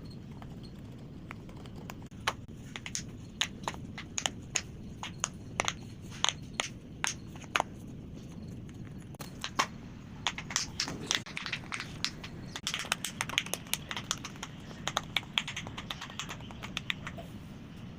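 Silicone bubbles of a round pop-it fidget toy being pressed in, each giving a short sharp pop. The pops come irregularly, then quicker in a run about two-thirds of the way through, and stop shortly before the end.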